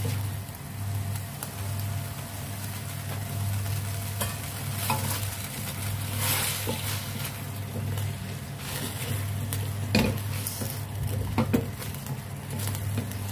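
Broccoli and straw mushrooms sizzling in a steel wok as a wooden spatula stirs and tosses them in their oyster-sauce seasoning, with scattered knocks and scrapes of the spatula against the pan, a couple of them sharper about ten and eleven seconds in. A steady low hum runs underneath.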